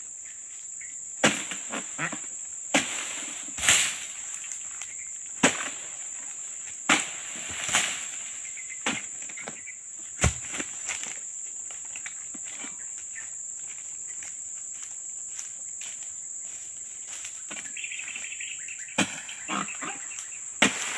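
Oil palm being harvested with a long pole-mounted sickle: irregular sharp cutting knocks and the thumps of cut fronds and fruit dropping, with one heavy thud about ten seconds in as a fruit bunch hits the ground. A steady high insect drone runs underneath.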